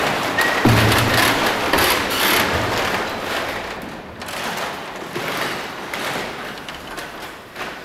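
Dancers' feet scuffing and thudding on a wooden floor, many short knocks over a rustling haze, growing quieter after about four seconds.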